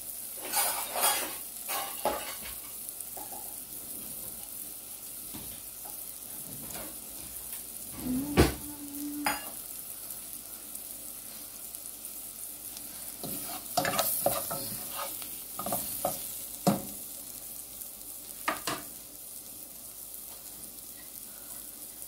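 Onion, garlic and ginger frying with curry powder in a non-stick saucepan: a steady sizzle, with short scraping strokes as the mixture is stirred in bursts. A sharp knock about eight seconds in is the loudest sound.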